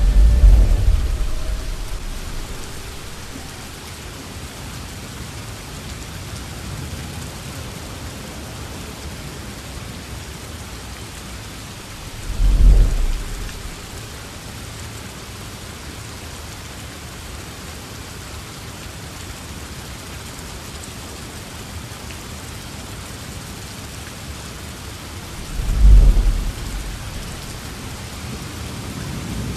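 Steady hiss of rain from the stage soundscape, broken three times, about thirteen seconds apart, by a deep low boom that swells and dies away over a couple of seconds.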